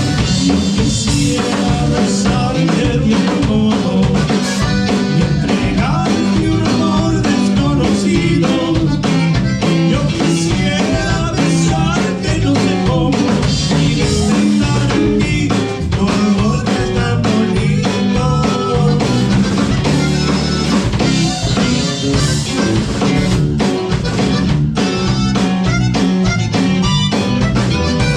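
Live band playing a steady groove on drum kit and guitar, amplified through the PA.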